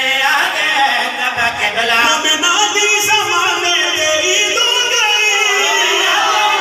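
A man singing a qasida in long held melodic lines, amplified through a microphone and hall loudspeakers.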